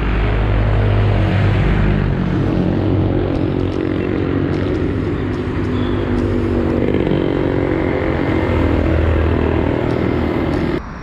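Motor vehicle engines running in road traffic, heard close by from a moving bicycle. A motorcycle-sidecar tricycle passes near the middle, and engine pitch rises and shifts there.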